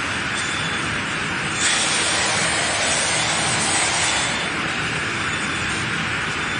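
Steady running noise of a spiral boiling tank: a stainless-steel perforated screw turns meatballs through hot water in a mix of machine hum and hiss. A louder hiss comes in about one and a half seconds in and lasts about three seconds.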